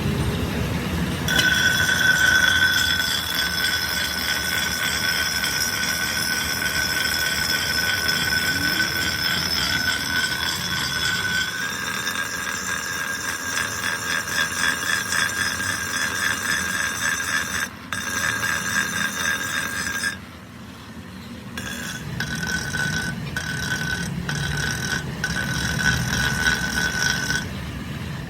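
A machine tool in a workshop running with a steady high-pitched whine over a rough grinding or cutting noise. The sound stops abruptly a few times, with a short drop about two-thirds of the way in and brief gaps near the end.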